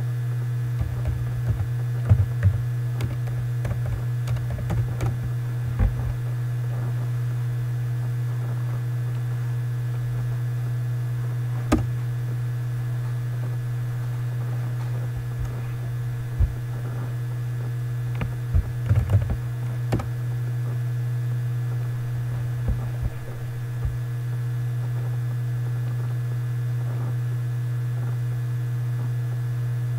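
Computer keyboard being typed on in short bursts of clicks, with a lone click near the middle, over a steady low electrical hum.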